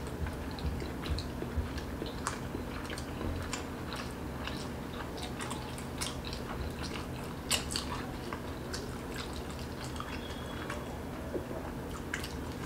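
Two people chewing whole steamed veg momos in one mouthful: irregular wet smacks and clicks of the mouth over a steady low hum.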